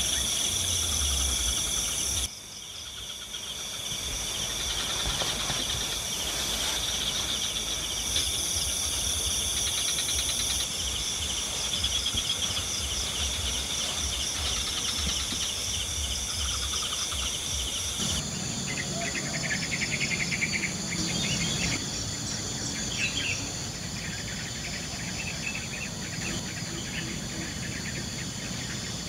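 A night chorus of crickets and other insects, several steady, pulsing high trills layered together. The mix of trills changes abruptly twice, about two seconds in and again past the middle.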